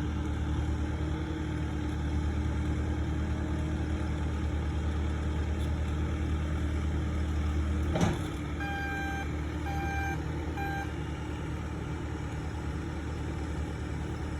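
Bobcat skid-steer loader's engine running steadily, with a single sharp clunk about eight seconds in, followed by three short beeps of its reversing alarm; the engine then runs a little quieter.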